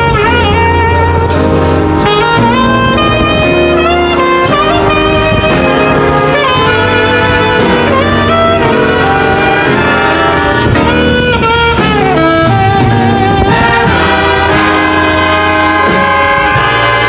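Big band playing jazz live, with a saxophone and brass section over a steady bass line.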